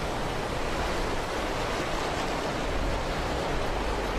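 Flood-swollen river rushing over rocky rapids: a steady, unbroken rush of water.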